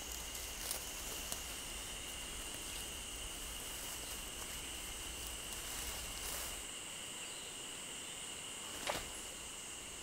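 Cicadas droning steadily in a summer forest: a constant high-pitched buzz with no breaks. A few faint ticks come through, about a second in and again near the end.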